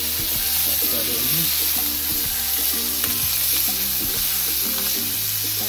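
Boneless short ribs searing in vegetable oil in a hot frying pan: a steady sizzle, with occasional clicks of metal tongs as the pieces are turned.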